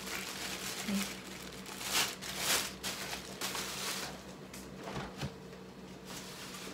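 Plastic cling film crinkling and rustling as a wrapped tray of raw tuna is handled and carried, in short bursts, followed about five seconds in by a low knock as a refrigerator door is opened.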